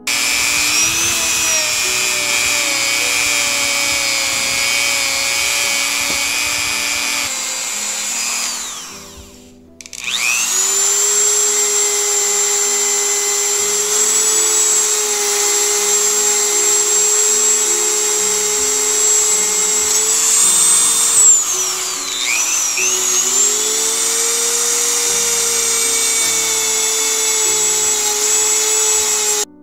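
Dremel 3000 rotary tool running at a steady high whine. It winds down and stops about eight seconds in, starts again with a rising whine about two seconds later, and dips briefly near the two-thirds mark before speeding back up. Soft background music plays underneath.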